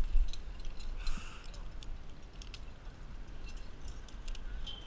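Scattered light clicks and clinks over a low rumble of wind on the microphone.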